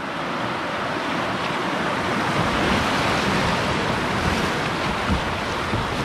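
River water rushing over a shallow riffle around a kayak, with wind rumbling on the microphone from about a third of the way in.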